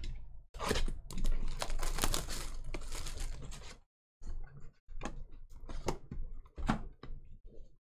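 Plastic wrapping crinkling and tearing as a sealed box of trading cards is opened: a dense crackle for about three seconds, then scattered lighter clicks and rustles.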